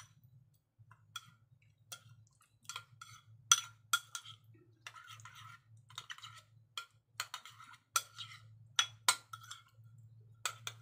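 Metal spoon clinking and scraping against a ceramic bowl while stirring a thick marinade with sliced garlic and ginger: irregular sharp clicks with short scrapes, over a faint low hum.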